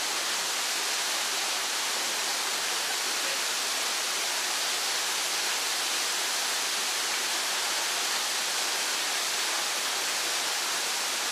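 Waterfall rushing steadily: an even, hissy roar of falling water without much low rumble.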